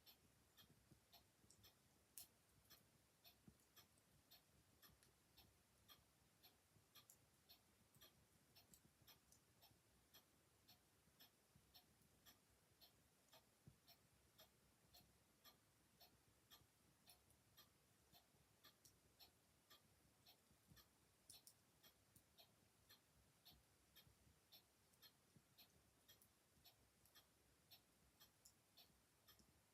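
Faint, steady ticking of a mechanical clock, about two ticks a second, over the quiet crackle of an open fire, with a sharper single crack about two seconds in and again around twenty-one seconds in.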